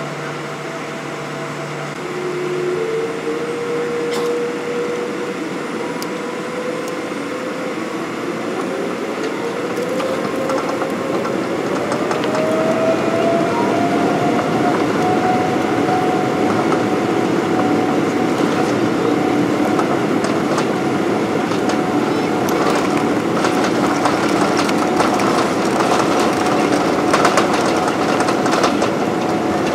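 An airliner's jet engines spooling up to takeoff thrust, heard inside the cabin. Their whine rises in pitch and grows louder about ten seconds in, then holds steady. Under it, the rumble and rattling of the wheels on the runway build as the plane accelerates on its takeoff roll.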